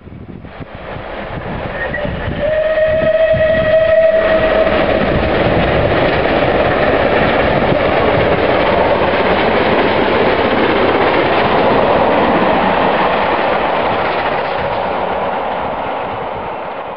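Steam locomotive hauling a passenger train past, working hard: it sounds its whistle once, a single steady note of about two seconds a couple of seconds in, over the heavy exhaust. Then the locomotive and the coaches' wheels on the rails run steadily past, fading near the end.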